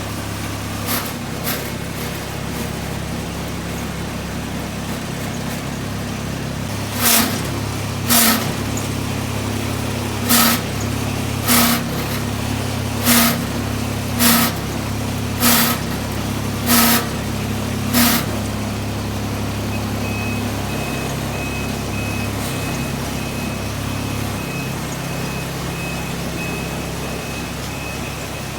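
The GC216 running at a steady hum while a sharp knock repeats about once every 1.2 seconds, nine times in a row around the middle: this is the abnormal noise it makes. A faint, regular high beep sounds in the last third.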